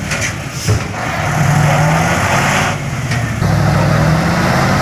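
Heavy dump truck's diesel engine running hard under load, with its rear drive wheels spinning as it struggles on a steep hairpin. A rough hiss sits over the steady low engine note and eases briefly twice, near the start and about three seconds in.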